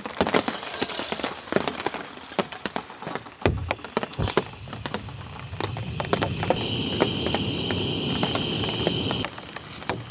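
Raindrops pattering and dripping as dense sharp ticks, with a couple of dull knocks around the middle. For about three seconds near the end a steady hiss with a high whistling tone starts and stops abruptly.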